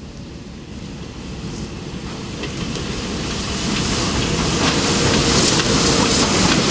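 NSWGR 59 class 2-8-2 steam locomotive working steam with a loaded cement train, its exhaust and running noise growing steadily louder as it approaches and draws level.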